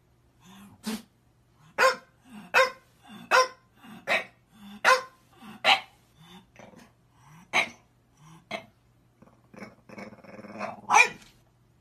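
French bulldog barking in a steady series of about a dozen sharp barks, roughly one every three-quarters of a second, with low grumbling growls between them. Near the end a longer growl builds into the loudest bark.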